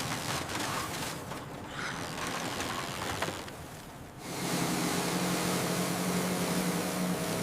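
Noisy work-site ambience that fades for a moment, then about four seconds in a steady low mechanical hum starts and keeps going.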